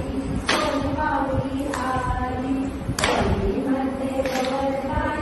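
A group of women singing a traditional Mangalagaur game song in chant-like unison. Two sharp hits cut through, about half a second and three seconds in.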